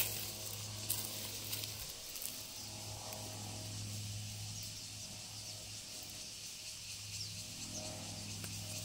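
Steady outdoor drone of insects, a high even buzz, with a low steady hum underneath and a few faint ticks.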